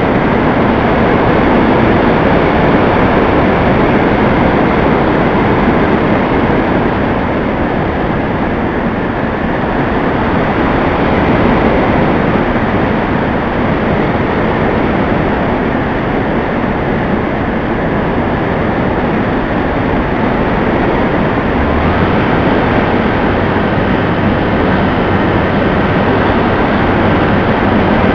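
Steady loud rush of airflow and motor noise picked up by an onboard camera on an aircraft in flight. About 22 seconds in, a steady high tone and a low hum join the rush.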